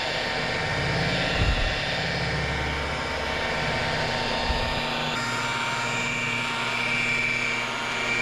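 Electric rotary buffer with a foam pad polishing a car's clear-coated hood at low speed, around 900 RPM: a steady motor whine, with a low rumble that thins out about halfway through.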